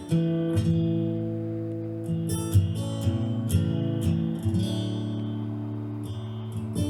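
Music: strummed acoustic guitar chords ringing out, a fresh strum every second or so.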